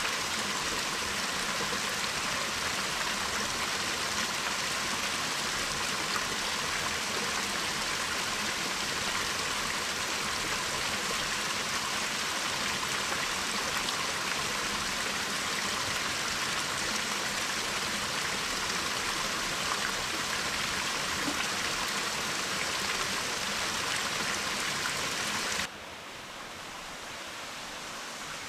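Steady rush of running water from a stream. Its level drops suddenly near the end.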